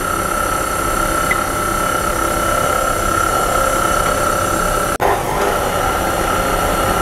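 KitchenAid stand mixer running steadily, its wire whisk beating whipped egg and sugar as egg yolks are poured in, with a constant high whine over the motor. A brief sharp dropout about five seconds in.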